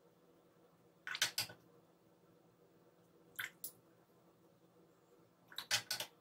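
Watercolour brush scrubbing wet paint in short strokes, in three brief scratchy clusters: about a second in, around three and a half seconds in, and near the end.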